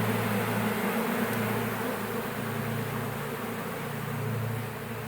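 A mass of honeybees buzzing in the air as a displaced colony flies around and orients to its new hive box. Underneath runs a low hum that swells and fades every second or two.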